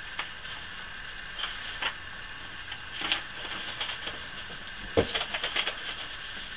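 A stack of printed paper pages being handled and leafed through, with scattered short rustles and clicks and a single thump about five seconds in, over a steady background hum.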